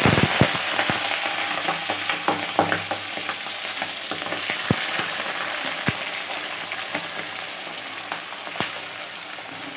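Raw giant freshwater prawns sizzling as they are added to hot oil with mustard seeds and dried red chillies in a kadai. The sizzle is loudest at the start and slowly dies down, with sharp pops and crackles every so often.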